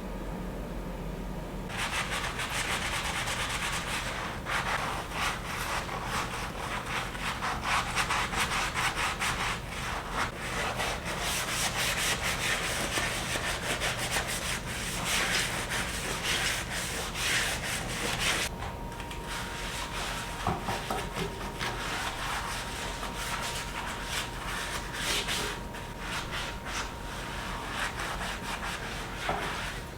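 Rapid back-and-forth scrubbing strokes on a bathroom surface, starting about two seconds in and going on steadily.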